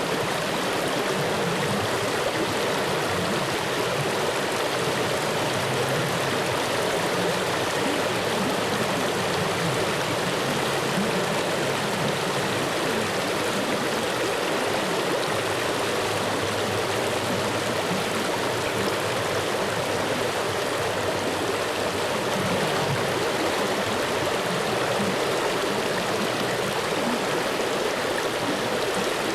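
Flowing water running steadily in an even, unbroken rush, with no rise or fall in level.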